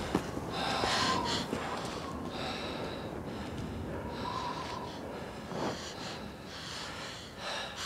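A person breathing hard, harsh heavy breaths coming about once every second and a half.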